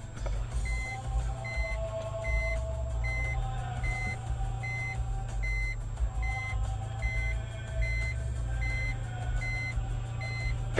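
A reversing warning beeper sounding a steady run of short, even beeps, about one every 0.8 seconds, over a low vehicle engine hum.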